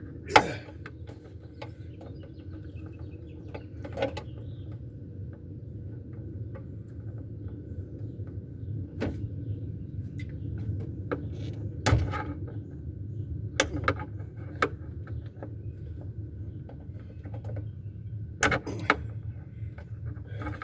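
Scattered clicks and knocks of hand work on a car's trunk and rear interior fittings while parts are pried and unscrewed, over a steady low hum. The loudest knock comes about half a second in, and another strong one about twelve seconds in.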